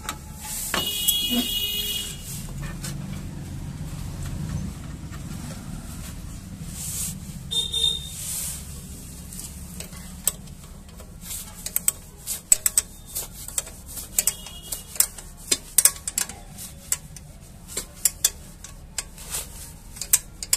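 Sharp, irregular metallic clicks and taps of a wrench on a motorcycle frame bolt as it is tightened, starting about eleven seconds in, over a steady low hum. About a second in there is a brief loud hiss with a high-pitched, horn-like tone.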